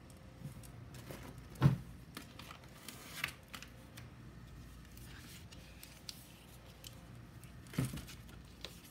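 Plastic-wrapped food packages being handled and set down on a table, with light crinkling and rustling. There is a sharp knock about a second and a half in and a smaller one near the end.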